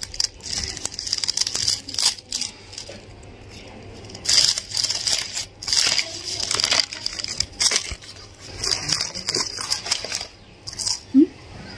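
Gift-wrapping paper crinkling and tearing as a small present is unwrapped by hand, in irregular rustles and crackles.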